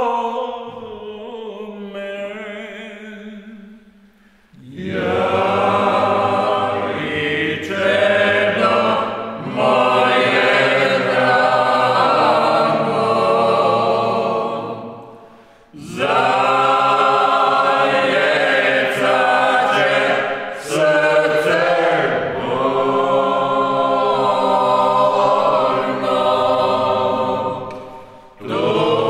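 Unaccompanied group of voices singing slow, chant-like phrases. The singing dies away a few seconds in, then comes back in long held phrases with short breaks about halfway through and near the end.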